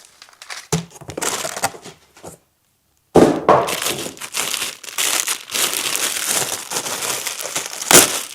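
Packaging crinkling and rustling as it is handled and unwrapped, stopping briefly about two and a half seconds in, then busier, with a sharp snap near the end.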